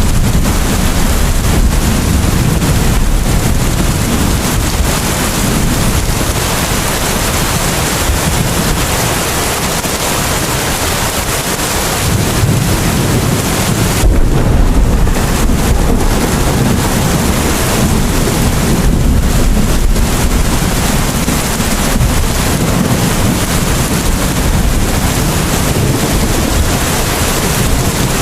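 Steady rain, a dense hiss, with a low rumble underneath that swells and eases every several seconds.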